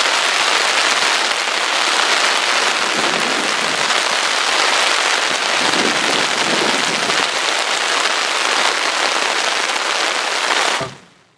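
Torrential tropical-storm rain pouring down, a dense, steady hiss of heavy rain on the ground, rails and floodwater. It cuts off abruptly near the end.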